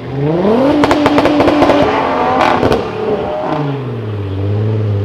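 Tuned car engine revved hard: the pitch climbs steeply, holds high for a second or so with rapid crackling pops from the exhaust, crackles again briefly, then falls back to a lower note near the end.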